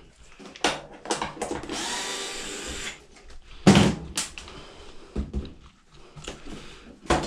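Metal washer panels and parts knocked and shifted during disassembly: a series of sharp clunks, the loudest a little under four seconds in, with a rasping sound of about a second shortly before it.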